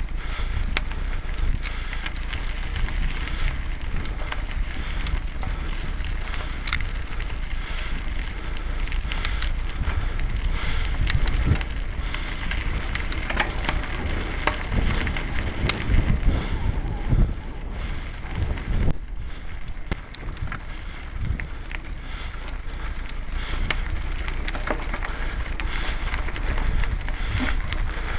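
Mountain bike riding over a dirt and gravel trail: a steady rumble of wind and vibration on the bike-borne camera's microphone, with scattered clicks and rattles from the bike and the stones under the tyres.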